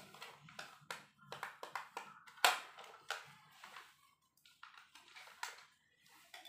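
Irregular plastic clicks and taps from a toy remote-control car and its remote being handled and turned over while the batteries are checked, with one sharper knock about two and a half seconds in.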